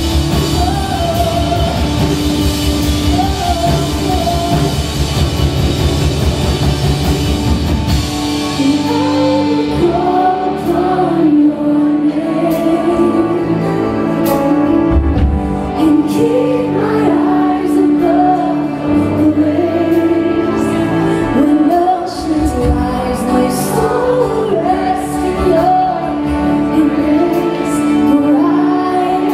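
Live worship band playing: a female lead voice with acoustic and electric guitars, bass, keyboards and drums. About eight seconds in the drums and full band drop away to a softer passage of singing over sustained keyboard and guitar.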